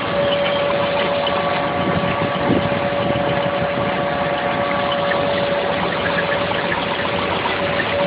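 Mixing-station machinery running steadily: an engine-like drone with a steady whine over it and a few light clatters.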